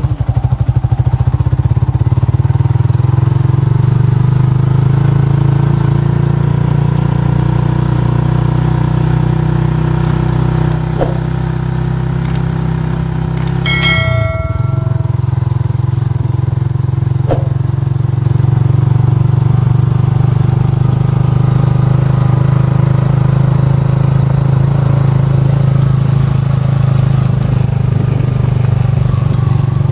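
Motorcycle engine running steadily while riding along a rough dirt track. About halfway through there is a brief electronic chime.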